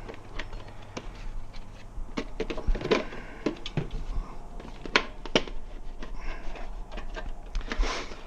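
Irregular clicks and knocks of rim protectors being pushed onto the edge of a motorcycle wheel rim while the tire is being fitted, with a few sharper knocks among them.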